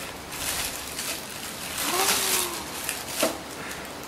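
Plastic bag rustling and crinkling in irregular bursts as a macaque rummages through it with its hands, with a brief pitched sound a little over two seconds in.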